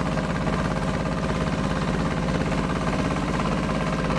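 Boat engine running steadily with a fast, even throb.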